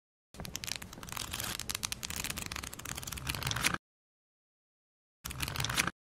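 Paper pages of a book being turned and flicked: dense rustling with many quick flicks for about three and a half seconds, then a short second rustle near the end.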